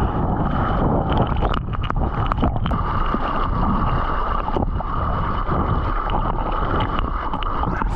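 Surfer paddling a surfboard through choppy whitewater: hands stroking and splashing, water sloshing and gurgling around the board, with a steady rush of wind and water on the camera's microphone at water level and many small splash ticks.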